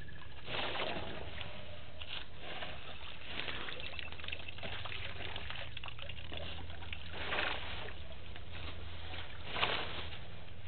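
Water sloshing and splashing in short bursts every few seconds as elephants drink at a waterhole, over a steady low hum; the loudest splash comes near the end.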